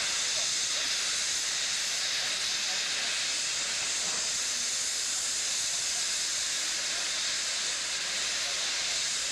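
Steam hissing steadily from a standing steam tank locomotive.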